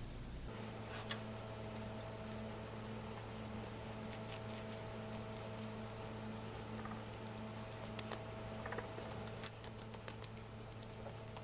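Light scratchy ticks and clicks of a flat paintbrush dry-brushing highlight paint over a latex-coated bat-wing prop, with a sharper click near the end, over a steady low hum.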